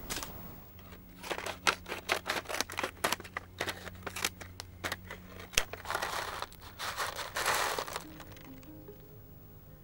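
Scissors snipping open a plastic seed packet of peas: a quick run of sharp clicks and crinkles. Near the end comes a couple of seconds of rustling as the packet is handled and the seeds come out, with soft background music underneath.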